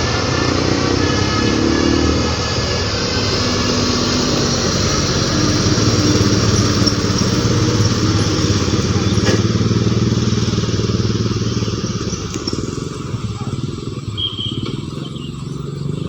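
Motor vehicle engine running steadily as traffic passes on a climbing road, easing off a little in the last few seconds.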